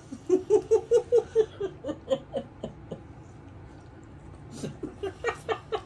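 A man laughing in quick repeated pulses, about five a second, for the first two and a half seconds, dying down, then breaking into laughter again about four and a half seconds in.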